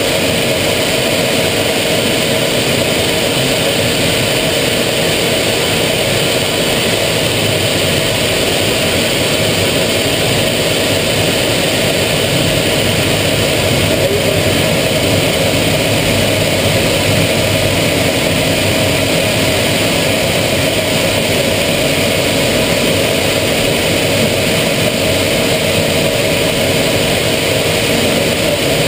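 Aero L-39 Albatros jet trainer heard from inside the cockpit in flight: the steady drone of its turbofan engine, with a constant whine under the rush of air past the canopy.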